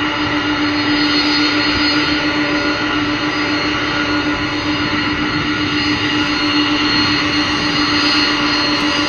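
Boeing 747 Dreamlifter's four Pratt & Whitney PW4062 turbofan engines running steadily as the jet taxis close by: a loud, even rush with a steady low hum and a high whine.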